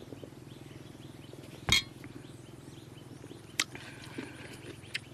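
A few sharp clinks, the loudest about two seconds in and two fainter ones later, over a steady low hum, with faint bird chirps.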